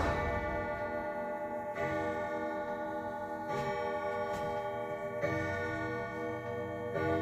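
Sligh triple-chime grandfather clock striking, likely the hour count after its chime tune: slow, evenly spaced strokes about every second and three-quarters, each ringing on under the next, with the clock ticking.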